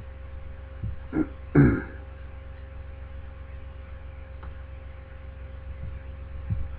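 Steady electrical mains hum, with a short throat-clearing sound from a man about a second and a half in.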